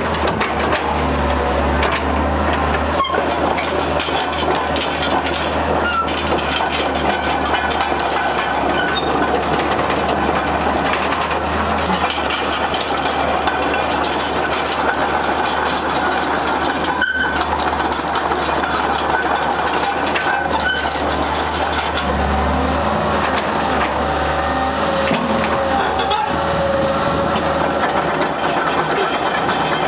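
Hitachi hydraulic excavator's diesel engine running steadily under load while the machine swings and travels, with clanking and clatter from its steel tracks and undercarriage.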